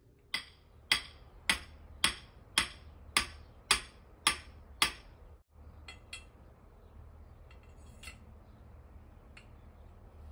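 A hammer driving a metal stake into the ground: nine sharp strikes, about two a second, that stop about five seconds in. A few faint metallic clinks follow.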